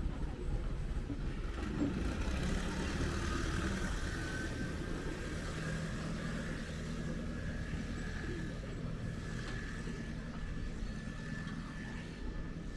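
An engine running steadily with a low hum, and a faint high steady tone over most of it.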